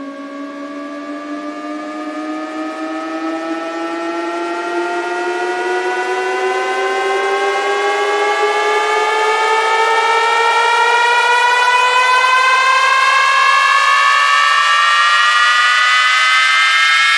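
Synthesized riser build-up from a DJ remix intro: a buzzy tone with overtones gliding slowly and smoothly upward in pitch while a second tone climbs faster beneath it, growing steadily louder.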